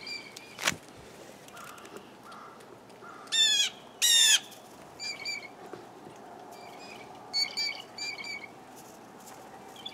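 Blue jays calling: two loud, drawn-out calls about three and four seconds in, then shorter calls in quick runs later on.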